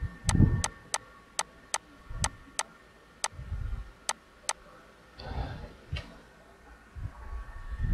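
Computer mouse clicking: about ten sharp clicks, irregularly spaced, over the first four and a half seconds, then one more faint click. A few low, dull thumps come underneath.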